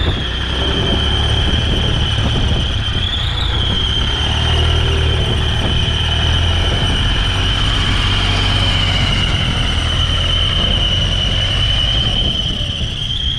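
Powertrac 434 DS tractor's diesel engine working steadily under load while dragging an earth leveler through wet soil, with a continuous high-pitched squeal over it that climbs in pitch near the end.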